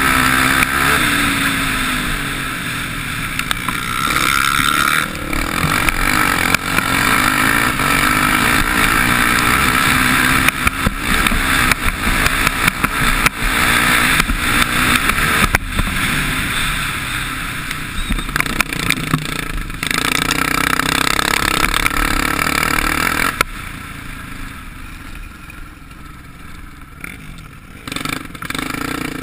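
Racing quad bike's engine running hard under load, heard from a camera mounted on the quad, with frequent sharp knocks and rattles as it crosses the rough track. About three-quarters of the way through the engine drops back and runs quieter as the quad slows for a turn.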